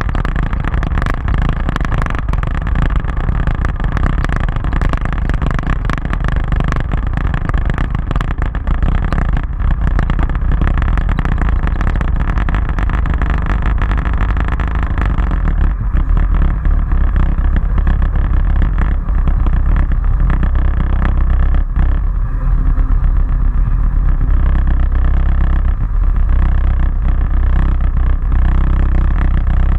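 Motorcycle riding, its engine running under heavy wind rumble on the bike-mounted microphone. Frequent knocks and jolts in the first half; steadier after about fifteen seconds.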